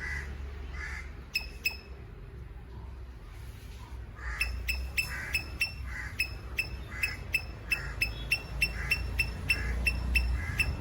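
Squirrel giving its sharp, repeated chip call: a pair of chips, a pause of about two seconds, then a steady run of about three chips a second. A low rumble runs underneath.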